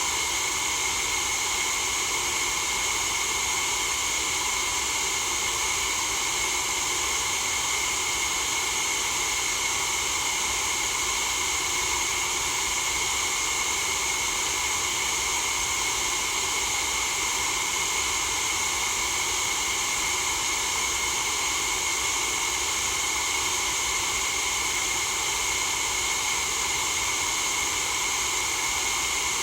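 Continuous white noise for sleep: an even, unchanging hiss, brightest in the upper register.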